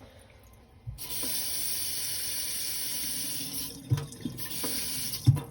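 Kitchen faucet running into the sink: the stream starts about a second in, stops briefly, runs again and cuts off, with two short knocks near the end. The faucet is being run to test a newly fitted Moen cartridge for leaks.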